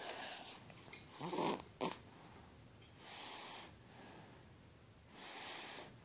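A young child snoring in sleep: one loud, low snore about a second and a half in, then two softer, airy breaths around three and five seconds in.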